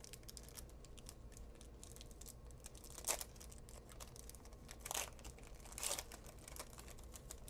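Wrapper of a trading-card pack being torn open and crinkled by hand: faint crackling throughout, with three louder rips or crinkles at about three, five and six seconds in.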